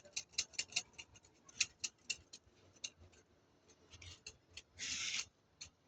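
A comb being dragged through hair that has had no conditioner, in quick short scratchy strokes at first, then more slowly, with one longer rasping stroke about five seconds in.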